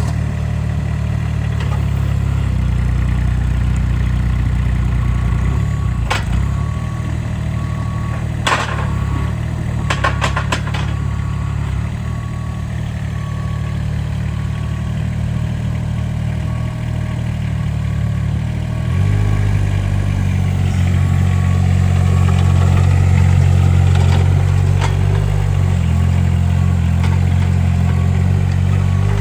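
Giant GS950T mini skid steer's diesel engine running steadily, with a few sharp clanks between about six and eleven seconds in and a repeated high beep. About two-thirds of the way through, the engine speeds up and runs louder.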